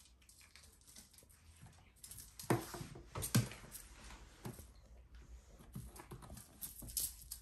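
A kitten playing with a toy on a string: paws and body scuffing and knocking against a carpeted cat house and a tiled floor. Irregular knocks, the two loudest about two and a half and three and a half seconds in.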